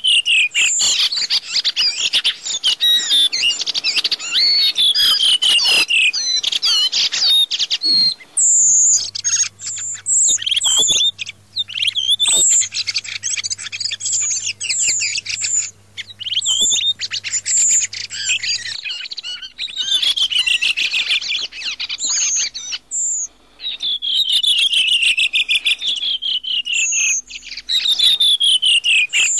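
Redwing thrushes calling and singing: fast, near-continuous high chirps and twitters with repeated falling runs of notes. It is a hunting lure call made by layering three redwing recordings together.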